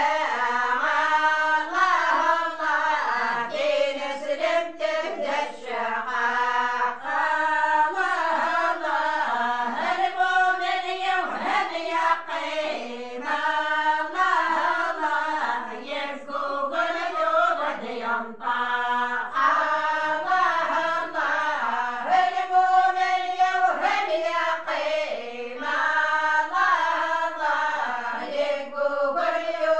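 A group of women singing an Amazigh religious praise song (madih) together, unaccompanied, in a slow chant-like melody.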